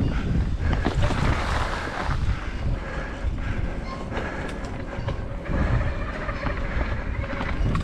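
Mountain bike rattling down a rough trail: quick clicks and knocks from the chain and frame over the bumps, tyres crunching, and wind rushing on the microphone.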